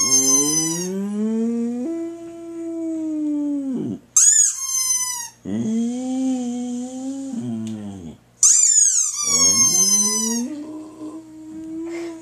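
A squeaky dog toy squeezed three times, each high, falling squeak answered by a Boxer dog's long howl.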